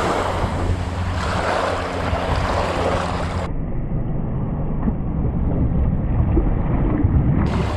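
Wind rumbling on the microphone over small waves lapping on a sandy beach. The higher hiss drops away about three and a half seconds in, leaving the low wind rumble.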